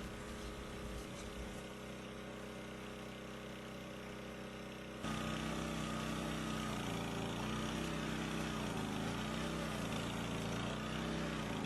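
An engine idling steadily in the background. About five seconds in it gets louder and its pitch wavers slightly up and down.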